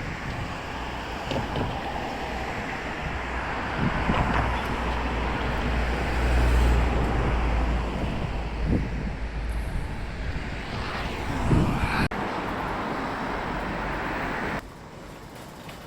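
City road traffic: vehicles passing with a low rumble that is loudest about six to seven seconds in. The level drops abruptly near the end.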